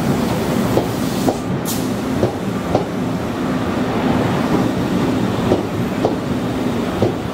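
Stainless-steel KRL electric commuter train rolling slowly past, its wheels clacking over rail joints in pairs about every second under a steady hum.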